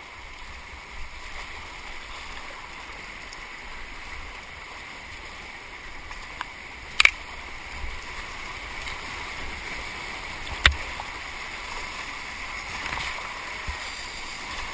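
Fast, flood-high river water rushing and splashing around a whitewater kayak as it paddles down into a wave train, the rush growing a little louder as it goes. Two sharp knocks stand out, about seven seconds in and near eleven seconds.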